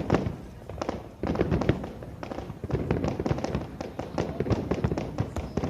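Aerial fireworks bursting in quick succession: many sharp bangs and crackles close together, growing denser and louder from about a second in.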